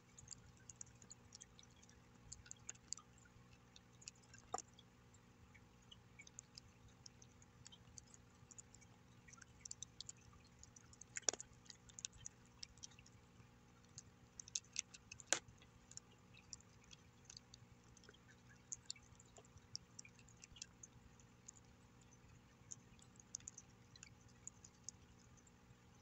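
A cat eating dry kibble from a bowl: faint, irregular crunching and small clicks, with a few sharper clicks about four and a half, eleven and fifteen seconds in.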